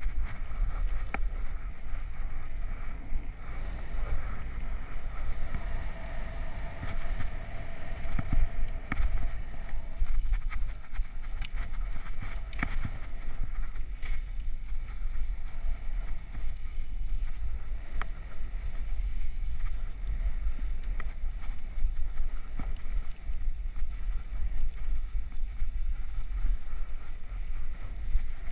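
Bicycle rolling over wet, cracked asphalt, heard through wind rumble on the helmet-mounted camera's microphone, with tyre noise and a few sharp clicks near the middle.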